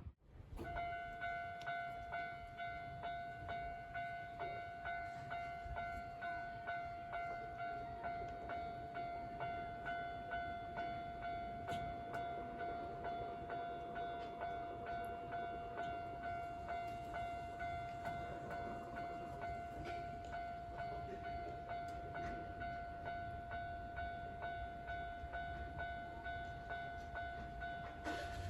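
Japanese level crossing's electronic warning bell ringing, one steady ding repeating at an even rhythm, as the crossing is closed for an approaching train.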